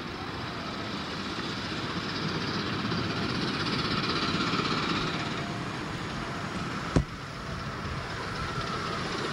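Miniature steam locomotive hauling a loaded passenger train along the track toward the listener, a steady running noise that swells and then eases. A single sharp click about seven seconds in.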